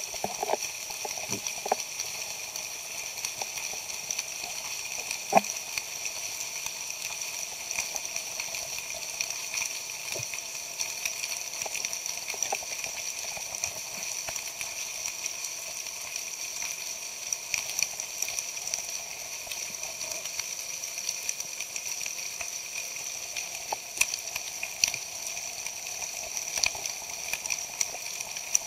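Underwater ambience picked up by a camera in its housing: a steady hiss with scattered crackling clicks throughout, one sharper click about five seconds in.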